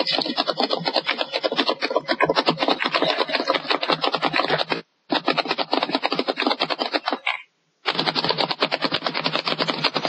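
Loud rasping snoring from a sleeping girl, heard over a video-chat connection, going on with no breathing pauses. The sound cuts out completely twice, briefly around the middle, as the connection drops.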